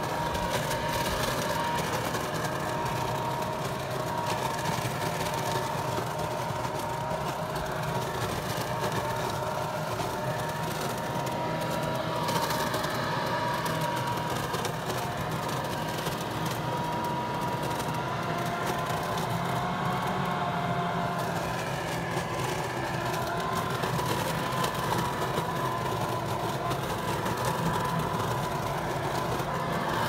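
Ryobi leaf blower-vacuum running steadily in vacuum mode, drawing leaves up its tube into the bag: a continuous motor and fan whine whose pitch wavers slightly, over a rush of air.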